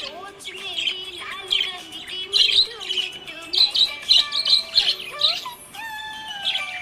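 Budgerigar chirping in a quick, busy run of short, high chirps, several a second, with some lower gliding notes.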